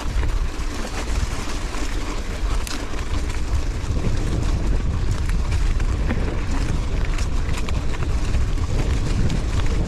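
Strong wind buffeting the microphone, a steady deep rumble, with many small clicks and rattles from a mountain bike riding over rocks.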